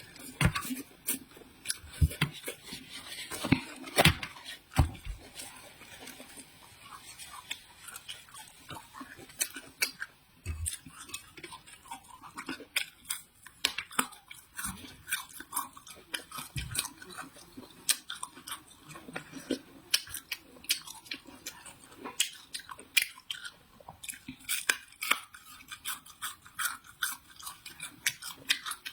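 Close-up mukbang eating sounds: chewing and crunching of stir-fried vegetables, made up of many short, irregular crisp clicks. A few heavier thumps come in the first five seconds.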